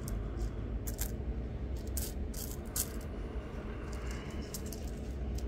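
Small pieces of opal rough clinking against one another and against fingernails as they are handled: several sharp clicks in the first three seconds over a steady low hum.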